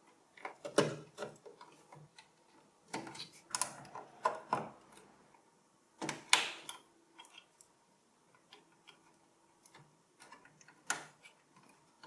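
Cable leads and plastic connectors clicking and rattling against the HP ProDesk 600 G2 SFF's steel case as front-port and power cables are routed and plugged into the motherboard. Irregular separate clicks and clacks, the sharpest about a second in and around six seconds in.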